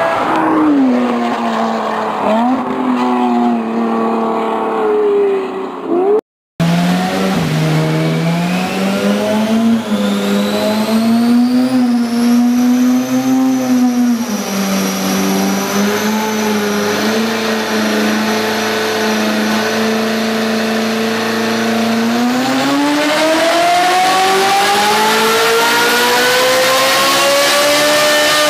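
A supercar's exhaust on the road, then, after an abrupt cut, a Ferrari 458's V8 with an aftermarket Fi Exhaust system running on a chassis dyno. The engine note rises and falls, then climbs steadily in pitch over the last six seconds as the revs build in a dyno pull.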